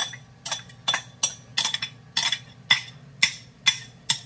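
A metal utensil knocking and scraping against a glass bowl as chopped onions and bell pepper are emptied into a stainless steel mixing bowl: about ten sharp, ringing clinks, roughly two a second.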